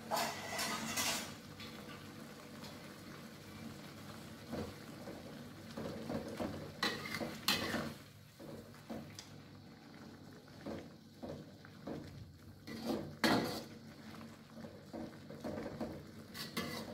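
Metal spatula scraping and clanking against an aluminium wok in a few short bursts while water spinach is stirred in a little simmering broth, with a faint bubbling between the strokes.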